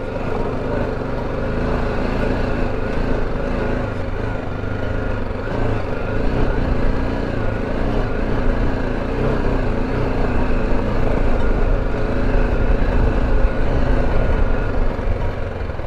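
BMW G310GS's single-cylinder engine running steadily as the motorcycle is ridden along a rocky dirt track.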